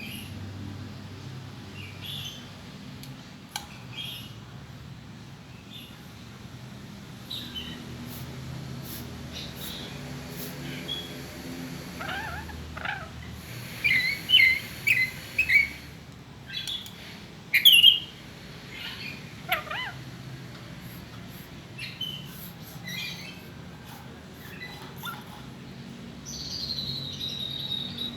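A lory (nuri parrot) calling in scattered short chirps and squawks, with a quick run of calls around the middle, a loud call a little past halfway, and a longer call near the end.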